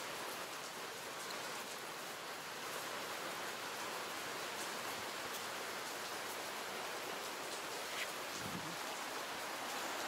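Steady outdoor hiss with faint scattered ticks, and a brief low rumble near the end.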